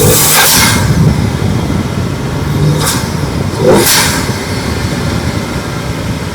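BMW 335xi's N54 twin-turbo straight-six being driven hard, engine revving under heavy road and wind noise. Short whooshes come about half a second in, near three seconds and just before four seconds, with a brief climb in revs at the last of them.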